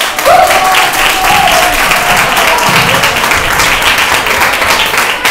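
Audience of children clapping and applauding loudly and steadily. A single high call rises over the clapping in the first second or so.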